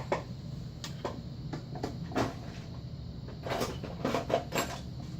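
Scattered clicks and knocks of tools and small objects being moved about while rummaging for a flathead screwdriver, over a steady low hum.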